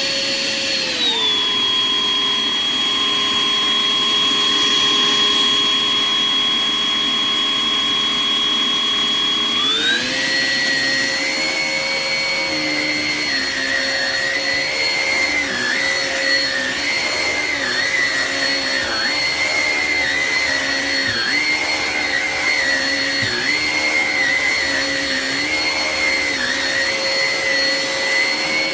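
Hoover ONEPWR Evolve Pet Elite cordless stick vacuum running with a steady motor whine. About a second in its pitch drops and holds lower; about ten seconds in it rises back, and a second, wavering tone comes in, dipping every second or two.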